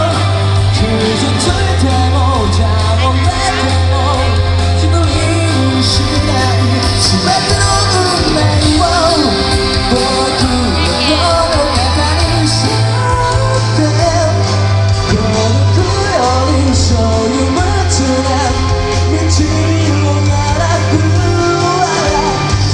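Live pop-rock band playing with a singer, loud in a large hall, with a heavy steady bass.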